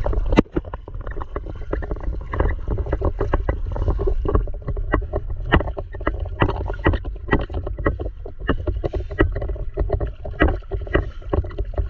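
Underwater scrubbing of marine fouling off a boat hull: a run of irregular scraping clicks and rasps over a steady low rumble.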